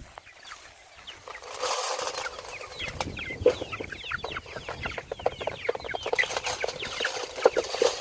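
A flock of chickens clucking and chirping, many short falling calls overlapping and growing busier a couple of seconds in.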